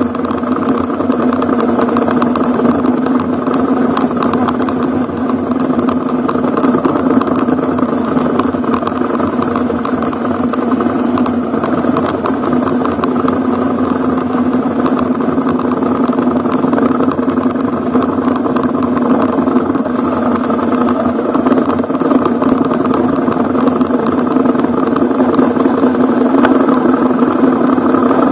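Ducati Hypermotard's V-twin engine running steadily as the motorcycle is ridden along.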